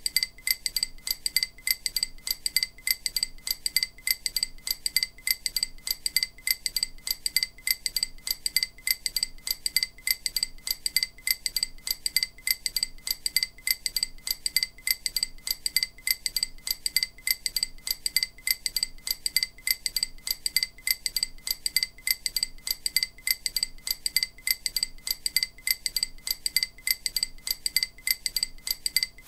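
Short, high, bell-like pings repeating at an even pace, a few a second, with no change in rhythm or pitch: EMDR bilateral auditory stimulation, the tones meant to sound alternately in the left and right ear.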